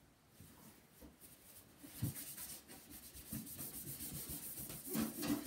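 Paper towel rubbing back and forth on the plastic case of a Samsung SyncMaster 700s CRT monitor, faint quick scrubbing strokes that start about two seconds in.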